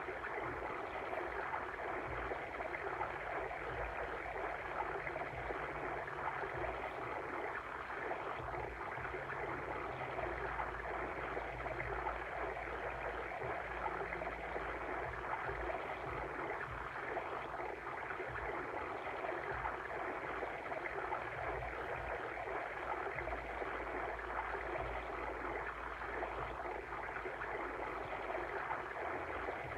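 Steady flowing and babbling of a water stream.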